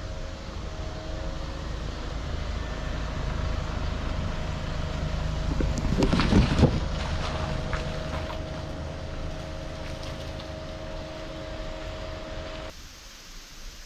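A car running: a steady engine drone with road noise, a louder burst of noise about six seconds in, then the sound cuts off abruptly near the end.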